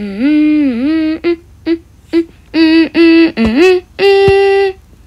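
A voice carrying a short wordless tune: long held notes with a few short ones in between, a rising slide about three and a half seconds in, and a long flat note near the end.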